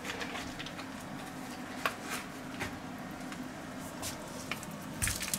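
Bratwurst frying in a hot ridged grill pan: a light sizzle with scattered crackles of spitting fat, and a louder noise near the end.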